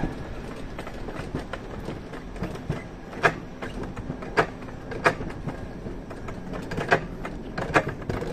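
Mountain coaster sled's wheels rolling along its steel tube rail, a steady rumble. From about three seconds in come sharp clacks roughly once a second, the wheels passing over the rail joints.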